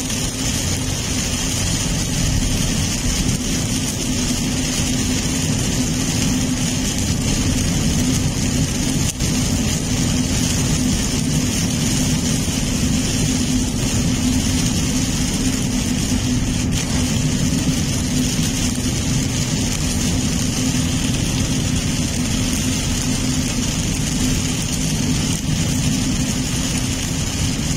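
Steady noise inside a car driving through very heavy rain: engine and tyres on the wet road, with rain on the car's body and windscreen.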